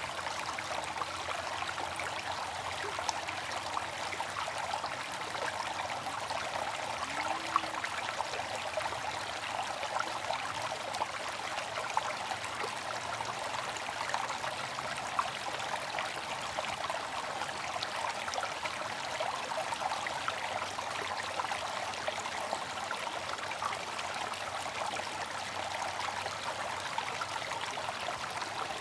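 Water from a bamboo fountain trickling and splashing continuously and steadily, with a few brief, sharper splashes.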